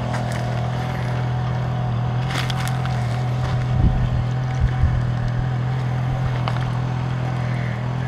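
Steady low drone of a running engine, with a few faint clicks about two and a half seconds in.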